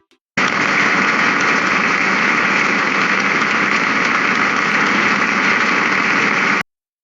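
A generated sound effect of a steady engine-like running noise, starting about half a second in and cutting off suddenly near the end.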